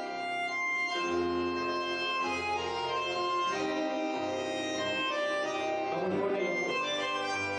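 Live tango orchestra (orquesta típica) playing an instrumental passage: sustained, organ-like reed chords, typical of bandoneons, over bass notes about a second apart.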